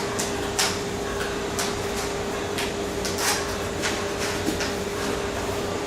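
Cardboard display panels being handled and fitted together, tabs going into slots: a scatter of brief scrapes and light taps over a steady hum.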